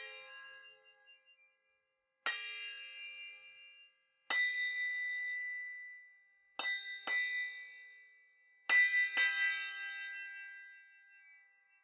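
A pair of small hand cymbals struck together seven times: three single clashes about two seconds apart, then two quick double clashes, each left to ring out with a clear high tone that slowly fades.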